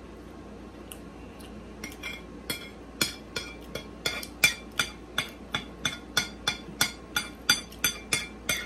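Metal spoon and fork scraping and clinking against a ceramic plate, gathering up the last of the food. Short sharp clinks begin about two seconds in and settle into a quick, even rhythm of about three a second.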